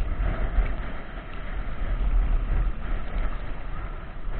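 Strong wind buffeting the microphone: a heavy low rumble that swells and eases in gusts.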